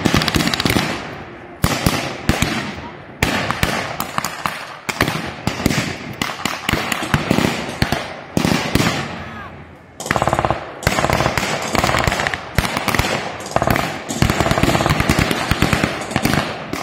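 Gunfire from blank-firing rifles and guns in a staged battle: many sharp shots in quick, overlapping volleys, with dense runs of rapid fire, some trailing off in echo.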